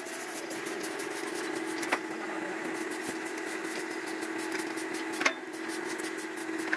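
A steady motor hum, with light scratchy swishes and two sharp knocks, the louder one about five seconds in.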